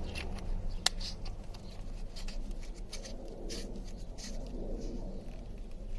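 Hands handling an aluminium flashlight: light scraping and small clicks, with one sharper click about a second in.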